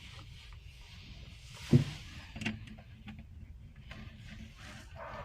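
A single sharp thump about two seconds in, then a lighter knock and a few faint clicks of hardware and tools being handled during boat work.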